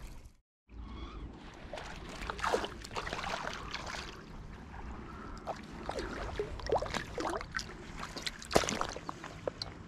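A small hooked smallmouth bass splashing at the water's surface as it is reeled in and lifted out, with water dripping and spattering back; a run of short irregular splashes, the loudest near the end.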